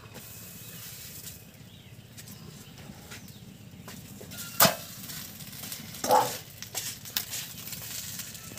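Stainless-steel plate clanking against a clay stove: a sharp strike about four and a half seconds in and a second, ringing one a second and a half later, with smaller knocks after. Banana leaf rustles as it is handled.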